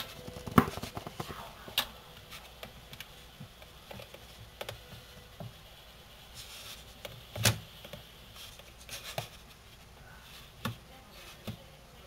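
A tamandua rummaging in a fridge, its claws scraping and knocking on plastic food tubs and the wire shelf: scattered clicks and knocks. The loudest come about half a second in and about seven and a half seconds in, the second just after a short rustle.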